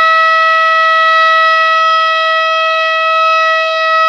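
Fire alarm sounder driven by a home-built one-zone fire alarm panel, giving one loud continuous tone that does not rise or fall: the panel is in alarm after its call button was pressed.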